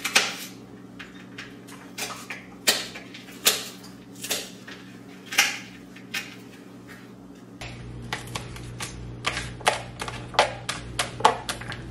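Kitchen knife striking a cutting board as an onion is diced: scattered knocks at first, then quicker, more even chops in the last few seconds, over a steady low hum.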